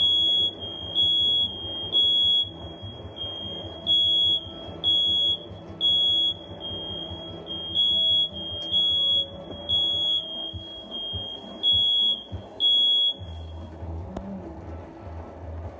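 Smoke detector alarm going off with loud high-pitched beeps in groups of three, a pause after each group: the standard evacuation pattern. It was set off by the coil cleaning. The beeping stops partway through a group about 13 seconds in.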